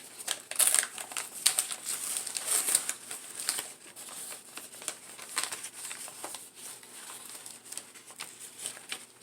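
Packaging crinkling and rustling as a plant is unwrapped by hand. The crackles come irregularly, busiest in the first few seconds and thinning out after.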